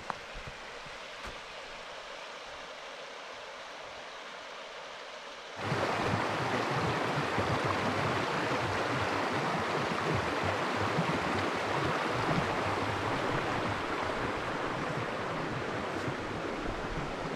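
Steady rushing of flowing stream water, starting suddenly and much louder about six seconds in after a quieter stretch of outdoor ambience.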